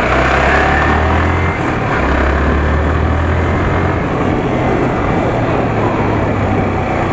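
Yamaha R15 V3 motorcycle being ridden: its 155 cc single-cylinder engine rises in pitch over the first couple of seconds as it accelerates, under a steady rush of wind on the microphone.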